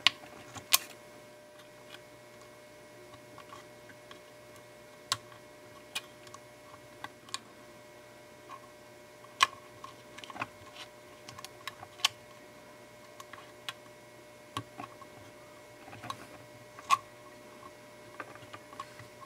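Small, sharp plastic clicks and ticks, a dozen or so at irregular intervals, from flat ribbon cables being pushed into a circuit board's flat-flex connectors and the connectors' locking clips being pressed shut.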